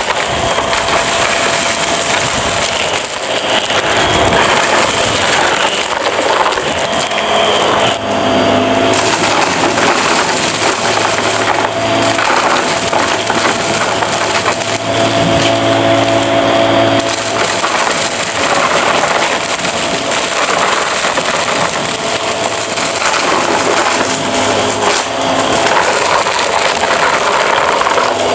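Upright vacuum cleaner running as it sucks up a pile of small, hard debris from carpet, with a dense crackling and rattling of pieces striking the nozzle and rushing up the hose.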